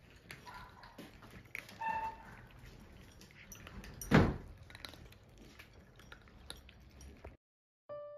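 Indoor room sounds with scattered small clicks and a couple of brief high-pitched sounds, then one sharp thump about four seconds in, the loudest sound. Near the end the sound drops out briefly and soft piano music begins.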